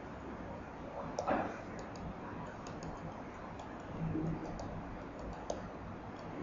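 Faint, irregular light clicks and taps of a stylus pen on a tablet PC screen as an equation is handwritten, over low steady room hiss.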